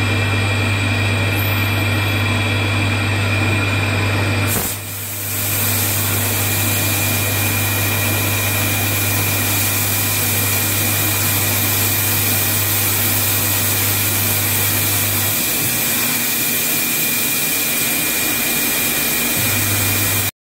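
CNC vertical machining centre milling a brake disc held in a chuck: the spindle and cutter run steadily, giving a high tone and cutting noise over a low hum. The sound dips briefly about four and a half seconds in, and the low hum drops out for a few seconds near the end.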